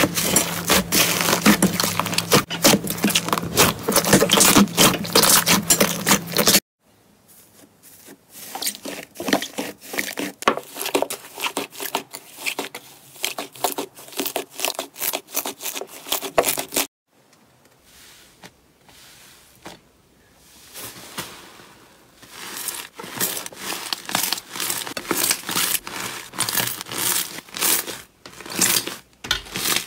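Hands squishing and kneading slime, making a dense run of small sticky pops and crackles. The sound drops off abruptly about six and a half seconds in and continues more quietly, goes nearly silent for a moment around seventeen seconds, then the crackling builds again.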